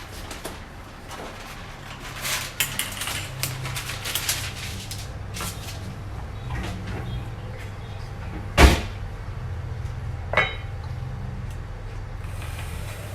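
Kitchen handling noises: scattered clicks and rustles, then a sharp knock of a door shutting about eight and a half seconds in and a smaller knock about two seconds later, over a low steady hum.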